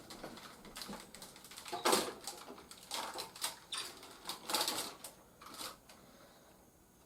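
Plastic action figures and toy parts being handled, with irregular clicks and short rustles, the loudest about two seconds in and again a little past four and a half seconds.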